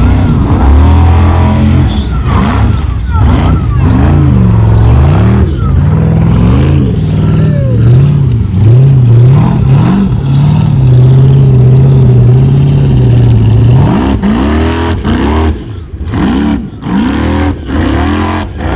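Formula Offroad race buggy's engine revving hard, its pitch swinging up and down several times as the throttle is worked. It is held high and steady for a few seconds past the middle, then drops into a string of short throttle blips near the end.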